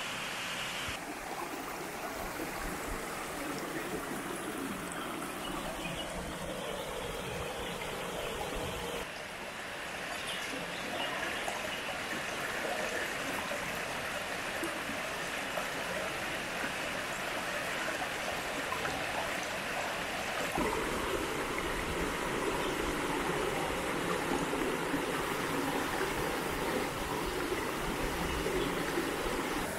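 Creek water rushing and trickling over rocks in a steady flow. The sound shifts abruptly three times: about a second in, about nine seconds in and about twenty seconds in.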